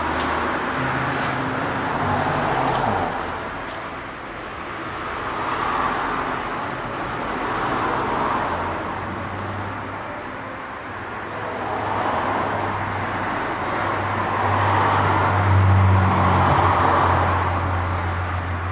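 Road traffic: vehicles passing, swelling and fading several times, with a low engine hum loudest about three quarters of the way through.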